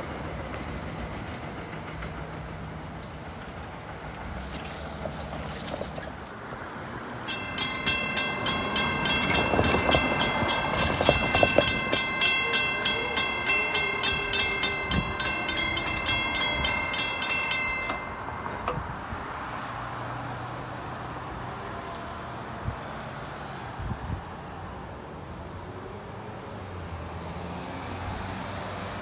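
Railroad grade-crossing warning bell ringing steadily, about three dings a second, for roughly ten seconds in the middle, then stopping suddenly. Underneath runs the steady rumble of an approaching train.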